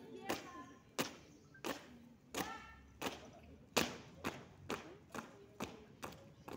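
Marching footsteps of a school flag escort: hard-soled shoes striking concrete in step, about one and a half firm stamps a second, with faint murmuring voices between them.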